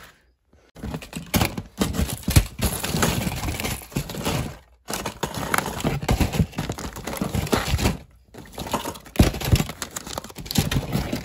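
Hands rummaging through a pile of fishing tackle: plastic packaging crinkling while hard lures and weights clatter together. It comes in three stretches, with short pauses about 5 and 8 seconds in.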